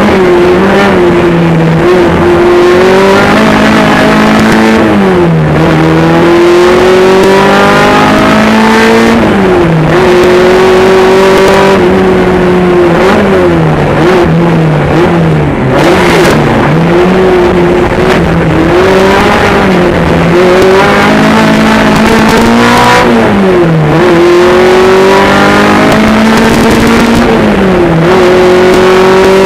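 Honda K24 2.4-litre four-cylinder engine in a Jeep Cherokee competition car run hard at high revs. Its pitch climbs under throttle and drops sharply at each gear change or lift, over and over.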